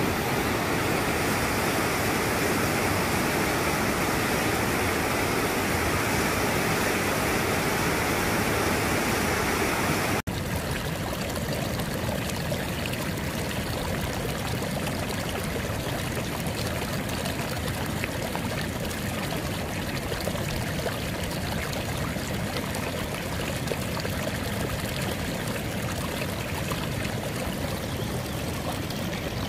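A stream running in a steady rush of water. About ten seconds in, the sound cuts abruptly to a slightly quieter, more even rush.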